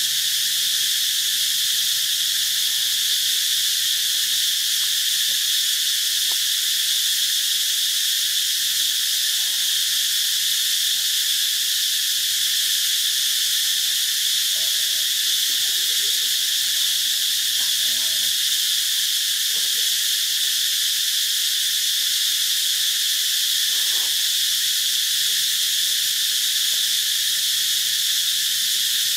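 Steady high-pitched insect chorus droning without a break in the forest.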